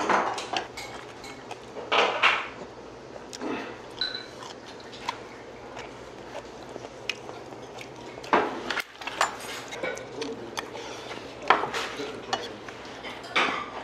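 Metal chopsticks and a spoon clicking and clinking against ceramic side-dish bowls and a stainless bowl in a series of short, irregular taps, with a few louder clatters.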